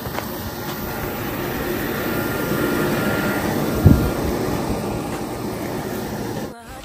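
A passing engine that swells to a peak a little past halfway and then fades, with a single thump near the loudest point.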